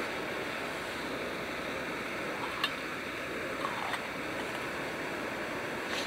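Backpacking canister gas stove burner hissing steadily under a pot of heating water, with a few light clinks from the pot about two and a half and four seconds in.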